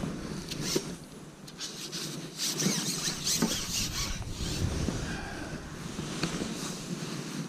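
Match-fishing pole being shipped out, its sections scraping and rubbing as they slide through the angler's hands and over his kit, with rustling and a few sharp knocks.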